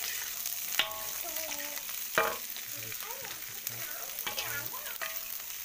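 Bean sprouts, cabbage and leafy greens stir-frying in hot oil in a wok: a steady sizzle with the spatula knocking and scraping against the pan, two louder knocks about one and two seconds in.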